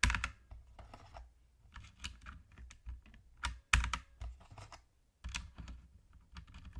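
Plastic keycaps being pressed onto the switches of an inexpensive mechanical keyboard: irregular clicks and clacks, the loudest at the very start and a little past halfway.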